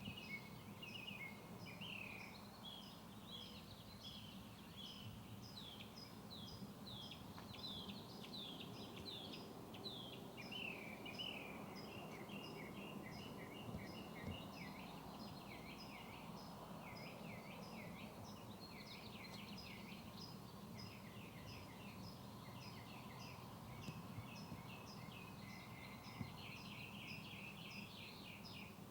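Birds chirping, many short overlapping calls, with a regular high tick repeating throughout, over a low steady hum.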